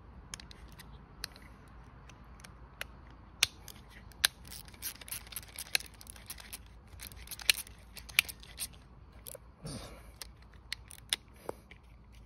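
Irregular metallic clicks and taps of a wrench and hand tools working a nut on a motorcycle's turn signal bracket, with a few sharper clicks among the lighter ticks.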